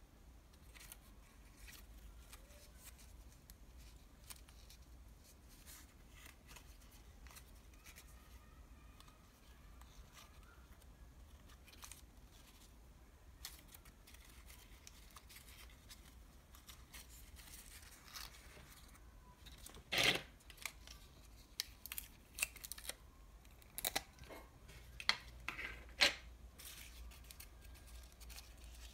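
Thin paper from a french fries bag being folded and pinched by hand: faint rustling and creasing, then a run of sharp paper crackles in the second half, the loudest about two-thirds of the way in.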